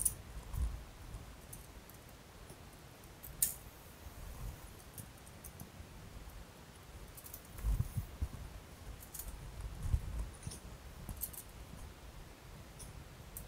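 Scattered light clicks and clinks of parts and tools being handled, with a couple of dull low thumps about eight and ten seconds in.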